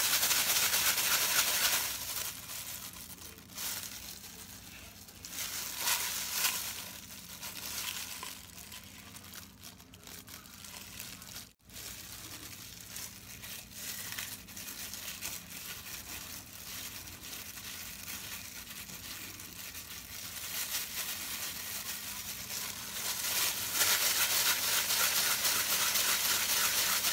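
Thin plastic food-prep gloves crinkling and rustling as hands shape sticky dough into balls and roll them in sesame seeds, loudest at the start and again in the last few seconds.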